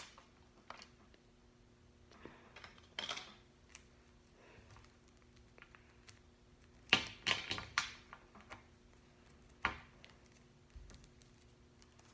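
Small plastic doll accessories and their wrappers being handled on a glass-topped table: scattered light clicks, taps and crinkles, with a cluster of louder crinkling and tapping about seven seconds in and a single sharp tick a couple of seconds later.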